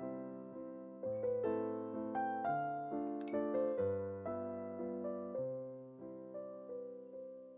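Background piano music: a gentle melody of single notes that strike and fade, one after another at an even pace.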